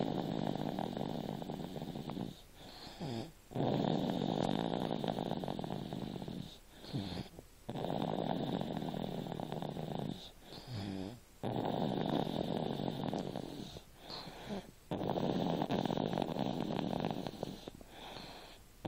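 A two-year-old child snoring in her sleep: long snores, five of them, one about every four seconds, with short quieter breaths between.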